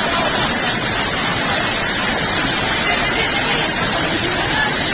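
Floodwater rushing in a swollen river, a loud, steady, unbroken rush of noise.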